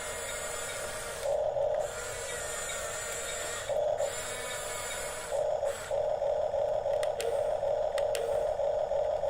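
Huina 1554 RC bulldozer's small electric drive motors and plastic gearboxes whirring in starts and stops: short bursts about one and a half and four seconds in, then a longer run from a little past halfway.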